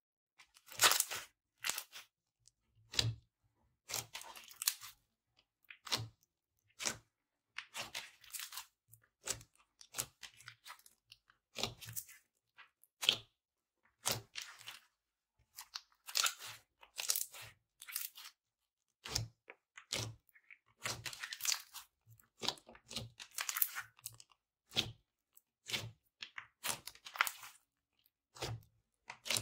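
Slime being pressed and squeezed by hand, crackling and popping in short irregular bursts about once a second with brief silences between.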